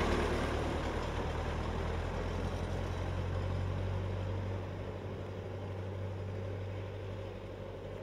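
Small old farm tractor's engine running steadily as the tractor drives away, growing fainter.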